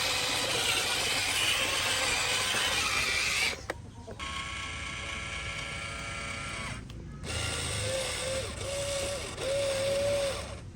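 Small electric motors and gearing of radio-controlled construction models, an excavator and a truck, running and whining in short clips cut together, with brief gaps between them. The middle stretch is a steady whine of several pitches, and near the end a tone wavers up and down.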